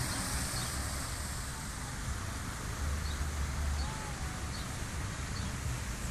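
Outdoor city-park ambience: a steady hiss with uneven low rumble, like wind on the microphone over distant traffic, and a few faint short bird chirps.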